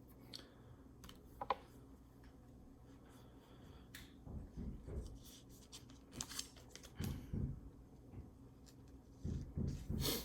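Topps baseball trading cards being handled and flipped through by hand: scattered soft clicks and slides of card against card, busier in the second half.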